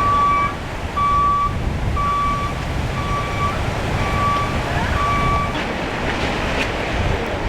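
Vehicle reversing alarm beeping steadily, about one half-second beep a second, six beeps that stop near the end, over a steady low rumble.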